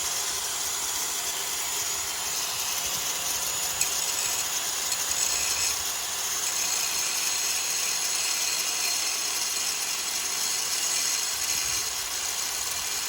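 A steady, unbroken high whirring hiss from a running power tool or machine, with no pauses or changes.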